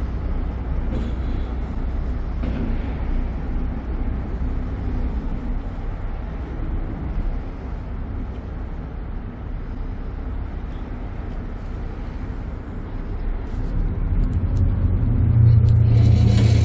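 Ferry engines rumbling steadily underway, heard from the open deck; the low engine hum swells louder in the last few seconds.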